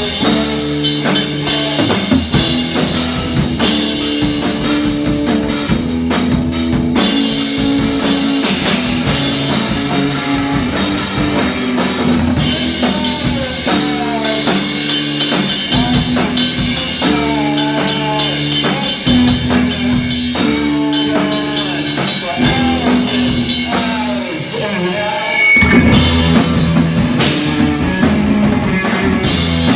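Rock band playing live, with drum kit and guitar. The music dips briefly near the end, then comes back louder.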